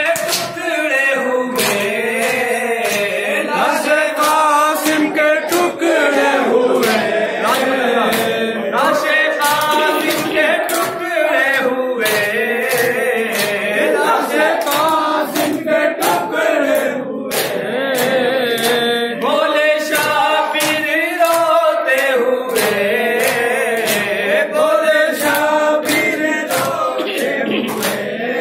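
Male voices chanting a noha, an Urdu mourning elegy, over a microphone with no instruments. A steady rhythm of sharp slaps runs under it: mourners beating their chests (matam) in time with the recitation.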